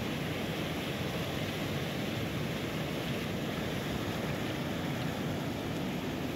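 Zanskar River rapids rushing over rocks in open water between ice shelves: a steady, even rush of fast-flowing water.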